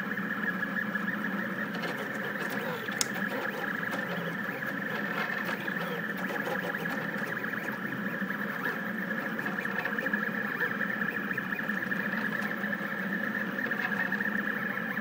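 A Rostock delta 3D printer running while printing PLA: its stepper motors whine in shifting tones over a steady hum, with a single tick about three seconds in.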